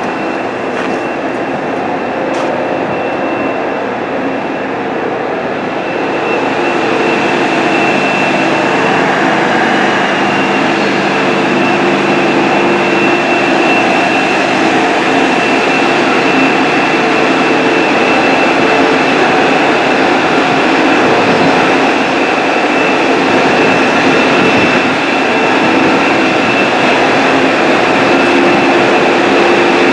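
Loud, steady mechanical noise like running industrial machinery, with a constant high whine over a dense rumble and hiss. It grows louder about six seconds in.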